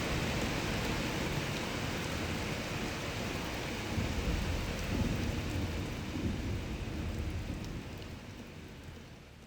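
Rainstorm ambience: steady rain with low rumbles of thunder swelling about four and five seconds in, the whole fading out toward the end.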